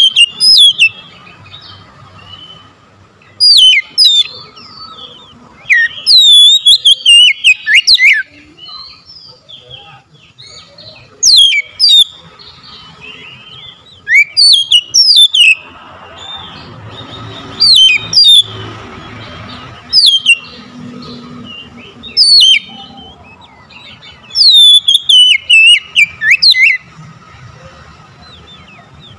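Oriental magpie-robin singing loud bursts of fast, sweeping whistled phrases, one burst every few seconds with short pauses between.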